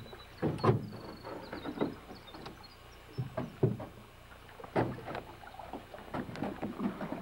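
Irregular knocks and thuds against an aluminium jon boat as it is poled and pushed through a tangle of logs, with the loudest hard knocks about half a second in and near five seconds.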